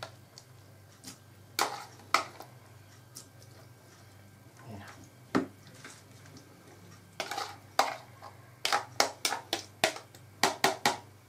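A spoon stirring and scraping through a chopped vegetable salad in a bowl: a few scattered knocks at first, then a quick run of clicks against the bowl, about three or four a second, in the last few seconds.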